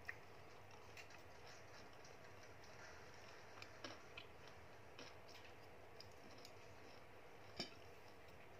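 Faint room tone with a few sparse, light clicks of wooden chopsticks against a plastic food container. The sharpest click comes near the end, as the chopsticks are set down.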